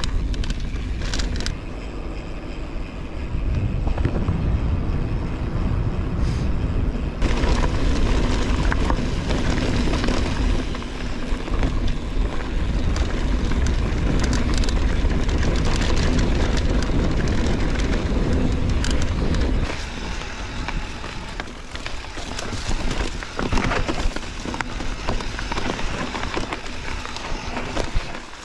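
Riding sound from a mountain bike on a trail: a steady wind rush and low rumble on the microphone, with clattering and knocks from the bike over rough ground. The sound shifts abruptly twice, about seven and twenty seconds in.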